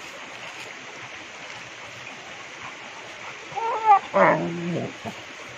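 Steady rush of river water. About three and a half seconds in come two short vocal sounds, a rising-and-falling one and then a lower, held one.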